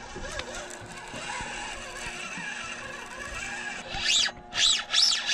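Spinning reel's drag screaming as a large hooked fish pulls line off it. It starts about four seconds in, in three quick surges that each rise and fall in pitch, and keeps going.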